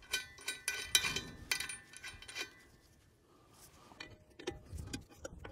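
Metal clinks and knocks with a short ringing tone as a homemade exhaust stack pipe is worked onto the generator's exhaust outlet. There is a quick run of clinks in the first couple of seconds, a quieter pause, then lighter taps near the end.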